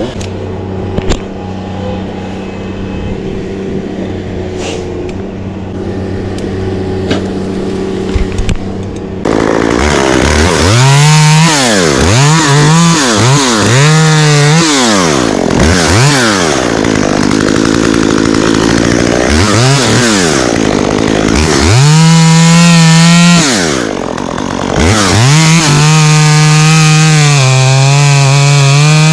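Two-stroke chainsaw idling steadily, then about nine seconds in it gets much louder and is revved up and down repeatedly, before being held at high revs for a few seconds at a time, cutting oak.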